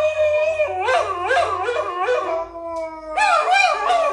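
Several dogs howling together in long, wavering, overlapping howls, played through a smartphone's speaker from a dog-howling video. The howls ease off a little past halfway and a fresh round starts about three seconds in.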